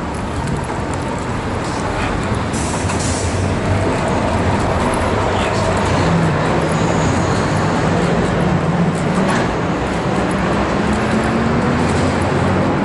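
Steady street traffic noise with a vehicle engine running, its low hum climbing slowly in pitch over the second half.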